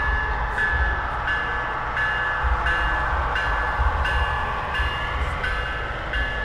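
Bell on an HO-scale model railroad layout ringing steadily, about once every three-quarters of a second, over a low rumble as a model freight train rolls past.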